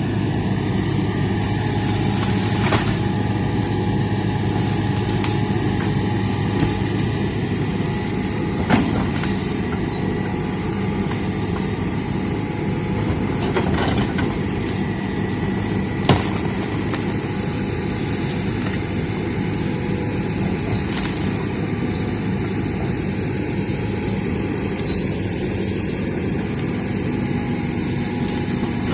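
Hitachi hydraulic excavator's diesel engine running steadily, with a few sharp knocks scattered through it.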